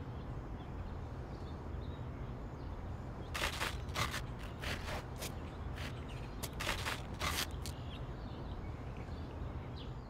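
Velcro hook-and-loop fastening ripping in a run of short rasping tears, the sound of a driver stuck fast to a Velcro seat panel being pulled free. The tears come about a third of the way in and go on for some four seconds over a steady low hum.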